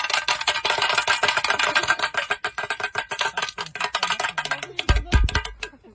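Music with rapid, dense percussive clicks, and a deep bass hit about five seconds in.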